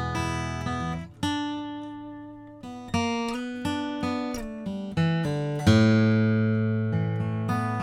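Gibson 50's J-45 Original acoustic guitar being flatpicked: a line of single picked notes, each plucked and fading. A loud full chord is struck a little after halfway and left to ring.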